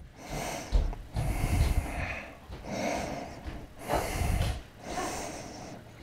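Heavy breathing close to the microphone: about five breaths, roughly a second apart.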